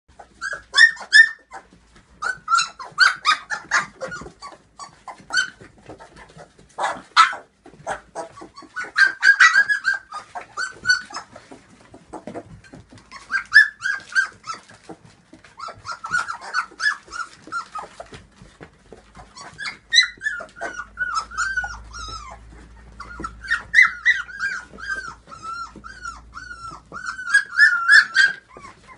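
A litter of young puppies whining and yipping: short high-pitched cries repeated throughout, running together into longer wavering whines in the last third.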